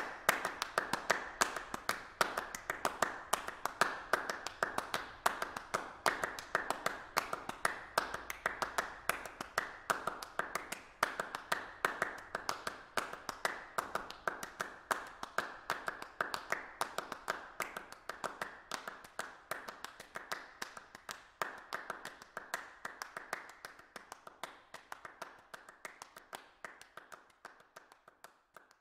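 A fast, continuous run of sharp clap-like strikes, several a second, slowly fading out toward the end.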